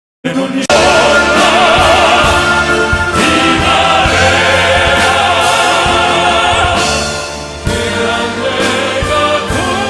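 Male vocal quartet singing classical-crossover style with strong vibrato over full instrumental backing. The sound cuts in abruptly from dead silence about a quarter second in.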